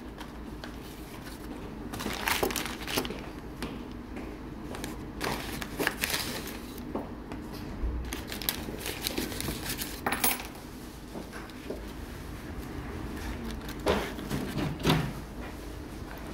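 Rustling and crinkling of rust-protection paper as a pair of hand-forged steel scissors is unwrapped, with scattered light clicks and knocks of the scissors being handled.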